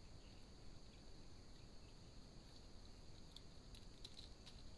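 Near silence: a faint steady high-pitched hiss, with a few faint clicks near the end.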